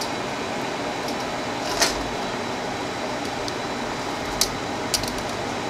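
Washi tape rolls being handled and set into their paper box tray, giving three or four light, sharp clicks over a steady background hiss.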